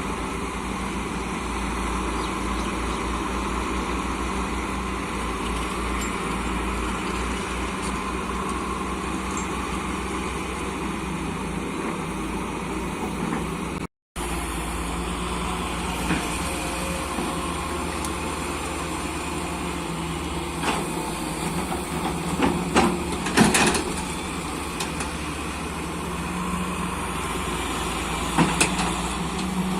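Excavator's diesel engine running steadily, with a few sharp metallic clanks in the second half. The sound cuts out completely for a moment about halfway through.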